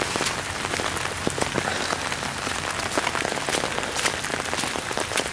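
Steady rain pattering on leaves, with dense irregular ticks of drops and a few sharper clicks scattered through.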